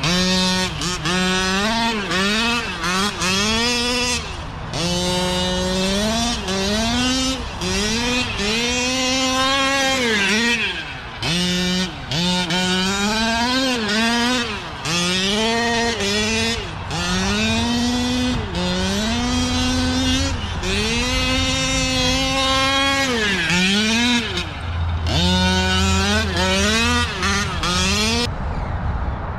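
A radio-controlled truck's motor revving hard and easing off again and again, a pitched whine that climbs and falls with each burst of throttle.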